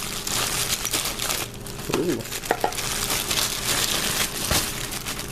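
Plastic packaging crinkling and rustling as it is handled, with a few sharp clicks.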